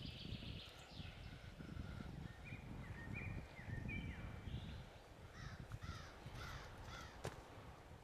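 Birds calling in a run of short chirping notes that rise and fall, over a low rumbling background. One sharp click comes about seven seconds in.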